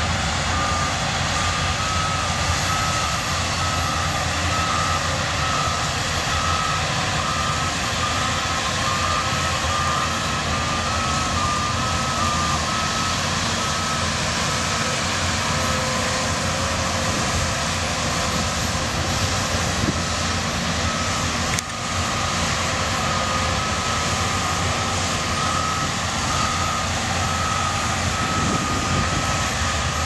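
Shantui DH17C2 bulldozers' diesel engines running steadily as they work the mud, with a reversing alarm beeping in a steady pattern that stops a little before halfway and starts again about two-thirds of the way through.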